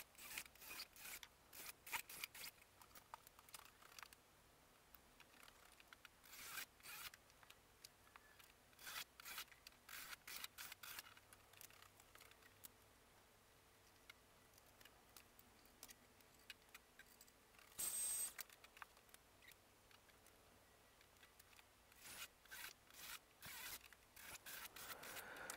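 Faint handling noises: scattered light clicks and rubbing, with one brief, slightly louder hiss about two-thirds of the way through.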